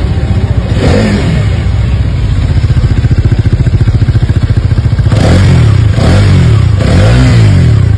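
Hero Karizma XMR 210's single-cylinder engine idling with a steady beat, then revved in three quick throttle blips over the last three seconds.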